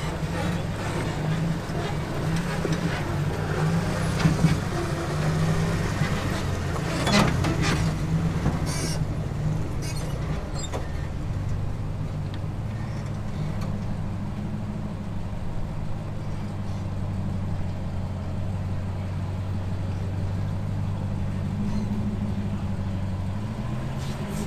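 Jeep engine running steadily at low revs while crawling over rock, with a few sharp knocks about four and seven seconds in. The revs rise near the end.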